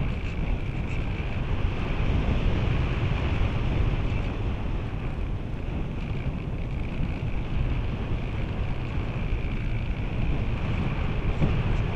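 Air rushing over the onboard camera of a model glider in flight: steady wind noise on the microphone, with a constant high hiss above it.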